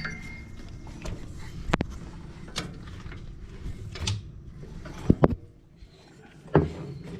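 Hands working a rubber drive belt around the mower's pump pulleys and frame: scattered clicks, knocks and rubbing, with two sharp knocks close together about five seconds in.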